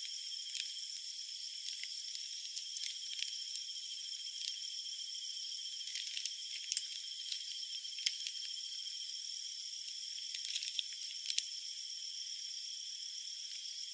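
Meat frying in butter in a hot pan: a steady sizzle with scattered spattering pops, a few sharper ones about seven and eleven seconds in. Insects trill steadily in the background at two high pitches.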